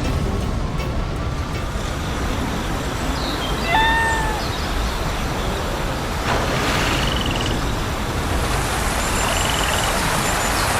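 Steady rumbling, hissing engine-like noise, with a short high call about four seconds in and two brief warbling chirps in the second half.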